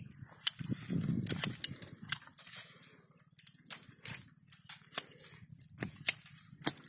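Hand pruning shears snipping thin dry custard apple twigs, a string of sharp snips a second or so apart, with the branches rustling in between.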